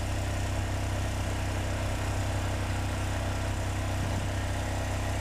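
Briggs & Stratton portable generator running steadily inside a closed garage sealed with tarps under the door, heard from outside. Its exhaust passes out under the door through an added car muffler, so a steady low exhaust drone dominates, with muffled motor and generator noise over it.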